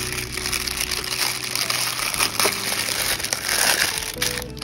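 Clear plastic packaging bag crinkling and rustling as it is handled and squeezed by hand.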